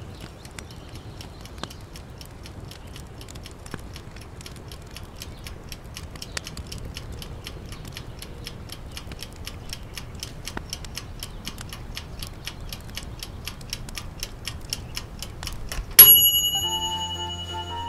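A timer ticking fast and evenly, then a single bright ding about sixteen seconds in that rings out: the timer going off to signal that the wait is over.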